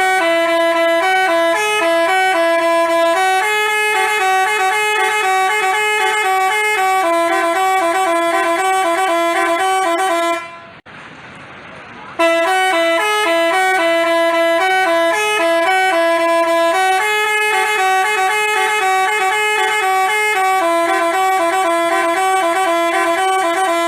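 Basuri telolet bus horn playing its multi-note tune, a string of short stepping notes. The tune plays for about ten seconds, stops briefly, then starts again.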